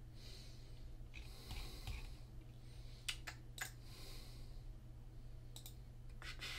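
Soft breathing during the first two seconds, then four faint, short computer mouse clicks spread over the next few seconds as a chart menu is worked.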